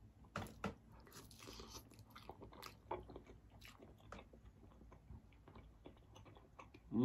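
Close-miked eating sounds of a person chewing turkey-leg meat dipped in garlic sauce: a string of soft, wet mouth clicks and smacks at an irregular pace.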